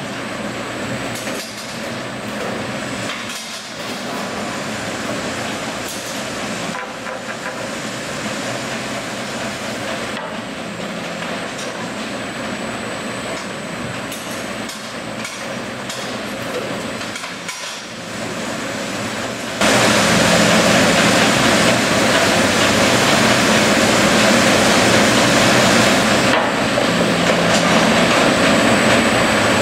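Mereen-Johnson rip saw line with its FastTrack infeed conveyor running: steady machine noise from the rollers, chain feed and saw. About two-thirds of the way through it suddenly becomes much louder and stays there.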